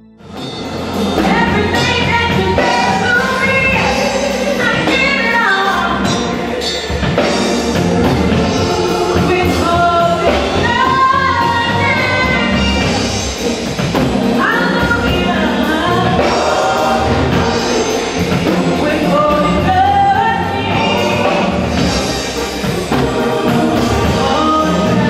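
Gospel choir of men's and women's voices singing together over a steady low accompaniment, coming in about half a second in.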